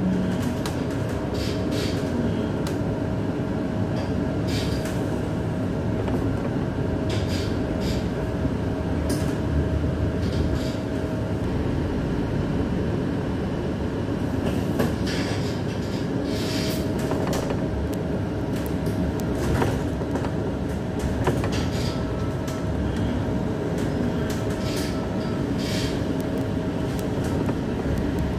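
Cabin noise inside a moving bus: a steady engine and road rumble with a constant whine that drops out for a few seconds near the middle, and scattered clicks and rattles.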